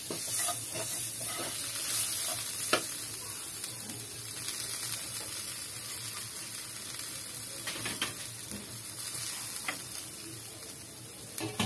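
Onion and spice masala sizzling steadily in hot oil in a non-stick wok as it is fried down before water is added, with a few short knocks of a wooden spatula against the pan.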